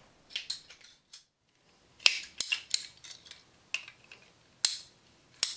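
Hand-held PVC pipe cutters snipping through a short piece of 3/4-inch PVC pipe lengthwise. The blade gives a series of sharp, uneven clicks and snips, with a short quiet pause about a second in.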